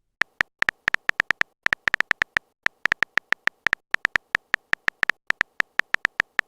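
Smartphone keyboard typing sound effect: a quick, uneven run of short tapping clicks, about six a second, as a chat message is typed out.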